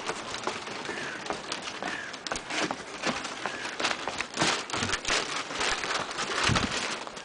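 Footsteps on a pebble-cobbled path scattered with dry leaves: an irregular run of crunching clicks and scuffs.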